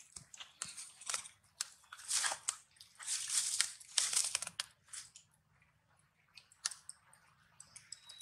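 Dry leaf litter crunching and rustling in irregular bursts, loudest through the middle, then dropping to a few scattered clicks near the end.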